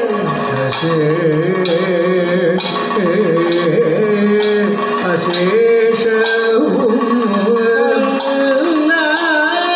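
Kathakali music: a male singer's voice in a wavering, ornamented Carnatic-style melody, with regular struck metal percussion keeping time and drums accompanying.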